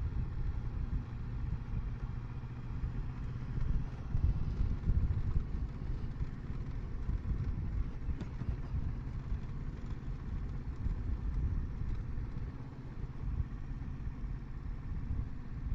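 Kawasaki Versys 650's parallel-twin engine running at low speed as the motorcycle rolls along, a steady low-pitched sound.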